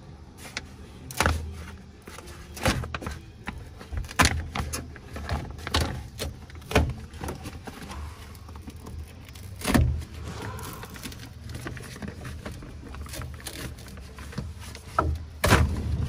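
Plastic door-panel covering being peeled off its adhesive by hand: crinkling and crackling with irregular sharp snaps. The loudest snaps come about a second in, about four seconds in, near ten seconds and near the end.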